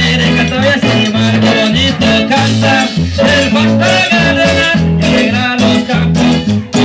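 Loud Latin American dance music with a bass line stepping between notes under higher melodic parts.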